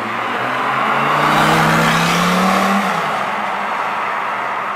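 Lamborghini Gallardo's V10 engine accelerating as the car passes, its note rising steadily for about three seconds, then dropping off as it lifts and pulls away.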